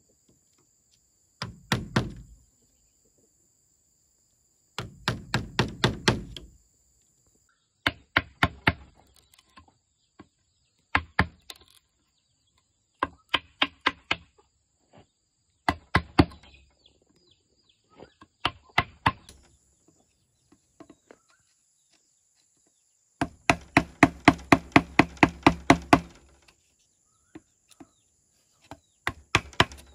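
Quick bursts of hard blows from a hand tool striking wood, about seven blows a second, each burst lasting from half a second to about three seconds, with short pauses between; the longest run comes about two thirds of the way through.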